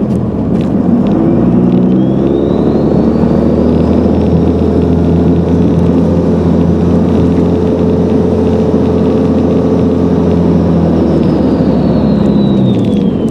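Dodge Cummins inline-six turbo diesel accelerating, its turbo whistle rising in pitch over about three seconds alongside the engine, holding high, then falling away as the engine drops back near the end.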